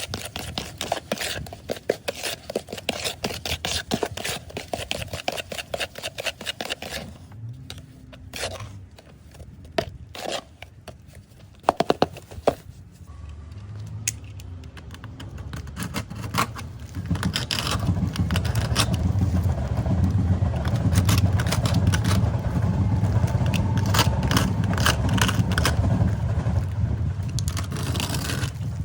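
A hand tool scraping a wall surface in quick repeated strokes, then a few sharp knocks. In the second half a steady low rumble builds up and continues.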